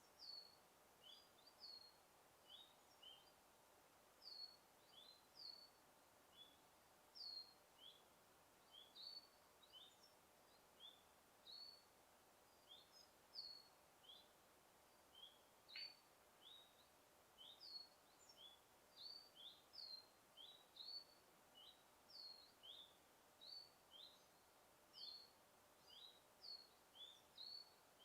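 Faint bird chirps: short, high notes that fall in pitch, repeated about once or twice a second over a soft background hiss.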